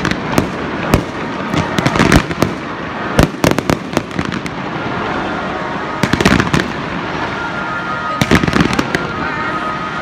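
Fireworks display: a dense barrage of bangs and crackling pops from bursting shells and firing effects, with thick clusters of reports about two, three and a half, six and eight and a half seconds in.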